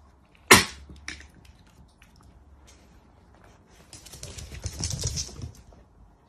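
Two dachshunds scuffling over a rope toy: one sharp knock about half a second in, then a scratchy, clattering scramble with soft thumps from about four seconds in.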